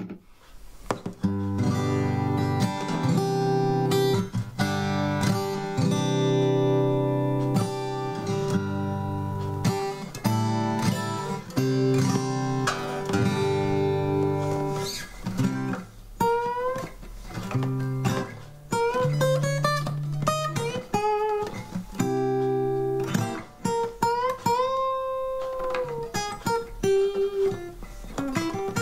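Fender DG60CE acoustic guitar strung with Ernie Ball Earthwood extra light (10-50) bronze strings, played unamplified. About fifteen seconds of ringing chords give way to picked single-note lines with string bends, one note bent up and held before it is released.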